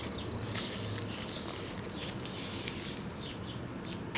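Kinetic sand being squeezed and pressed by hand on a foam plate: faint, soft crunching and rustling touches, a few times, over a quiet background.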